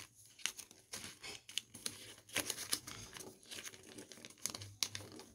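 Sheet of origami paper being folded and creased by hand, giving a string of soft, irregular crinkles and crackles.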